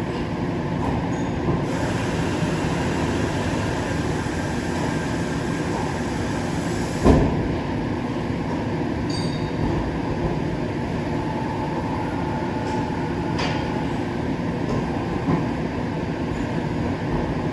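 Mori Seiki MT3500 CNC turning center running under power: a steady mechanical rumble, with one sharp clunk about seven seconds in and a couple of lighter clicks later.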